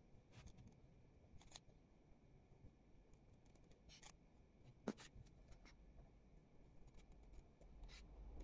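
Faint, scattered snips of small scissors cutting notches into folded paper, with one sharper snip about five seconds in.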